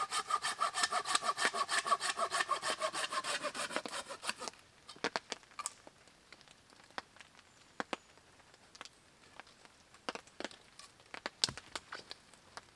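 Bow saw cutting through a wooden pole with quick, even strokes, which stop about four and a half seconds in. Scattered sharp cracks and snaps of wood follow.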